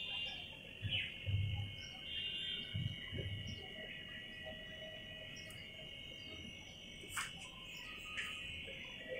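Faint steady high-pitched chirring of crickets, with a few soft low thumps in the first few seconds and two faint clicks near the end.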